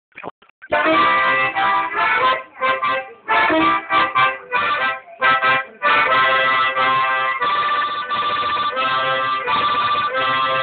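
Harmonica played solo: a run of short, choppy chords and notes, then longer held chords from about halfway.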